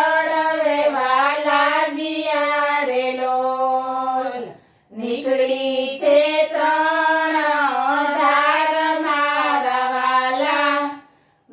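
Three women singing a Gujarati devotional bhajan together in unison, unaccompanied, in long drawn-out notes, with a short breath pause about halfway through and another near the end.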